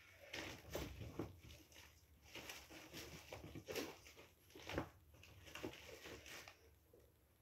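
Faint, irregular soft taps and rustles, a few every second, like items being handled.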